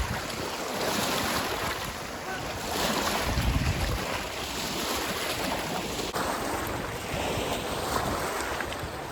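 Gusty wind blowing across the microphone, a steady rushing with a stronger low buffeting gust about three seconds in.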